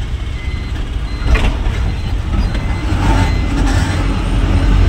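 Goods truck's engine running and road rumble heard from inside the cab while driving in traffic, with one short sharp knock about a second and a half in.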